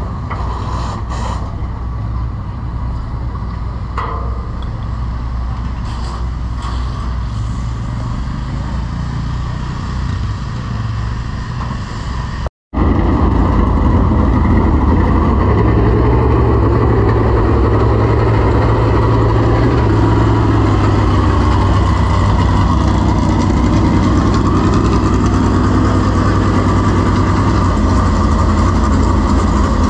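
Dirt super late model race car V8 engines idling steadily. About twelve seconds in the sound cuts out for an instant and comes back louder, with an engine running close by.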